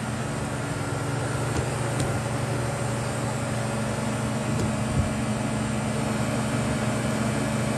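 Pool filter pump running with a steady hum and rushing noise.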